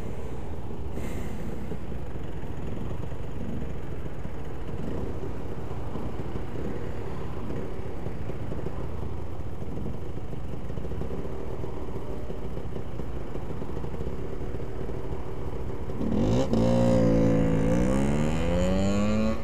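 A motorcycle engine idles under a steady traffic rumble while waiting at the lights. About 16 seconds in, an engine revs up loudly as the bikes pull away, its pitch rising, dipping at a gear change, then rising again.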